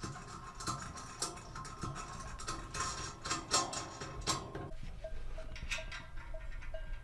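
Gloved hands working on a steel mirror-support frame and its mirror mounts: scattered light metal clicks and scrapes, then from about five seconds in a regular faint ticking, about three ticks a second.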